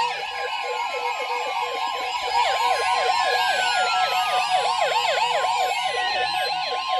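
NOAA Weather Radio alert: the steady 1050 Hz warning tone sounds, with a weather radio's electronic siren alarm warbling rapidly over it, about four rises and falls a second. It heralds a severe thunderstorm warning.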